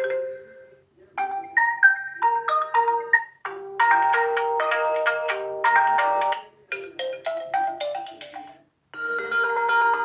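Realme U1 phone's built-in ringtones previewed one after another: short melodies, each cut off after two or three seconds, with a brief pause before the next one starts.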